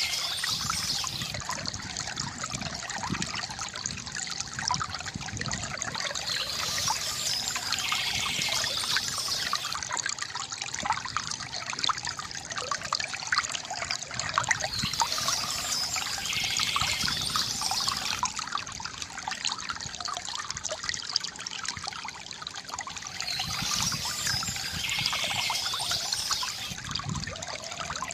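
Small stream trickling and babbling over stones, a steady flow of water. A short high bird call recurs about every eight seconds.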